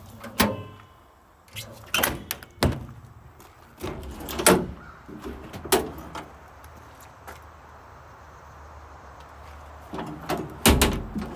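Metal compartment doors on a truck service body being unlatched, opened and shut: clicks of the paddle latches and knocks of the doors. There are several sharp knocks spread through the clip, with the loudest cluster near the end.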